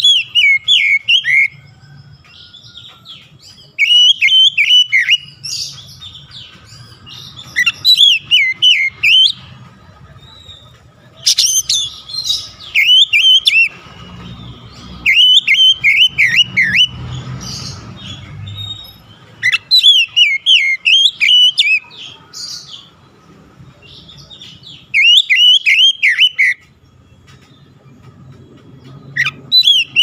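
Oriental magpie-robin (kacer) singing: loud phrases of clear whistled notes that fall from high to lower pitch, repeated every few seconds.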